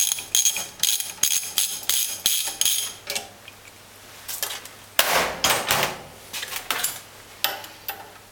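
Ratchet wrench clicking in a quick series of metallic strokes, about three a second, as a nut on a unit injector is loosened. About five seconds in comes a louder clatter of metal tools, then a few light clicks.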